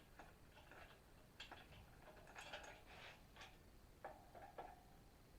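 Faint, irregular metallic clicks and short rattles from the lifting chain and hoist as the Volvo B18 engine is taken up on the chain.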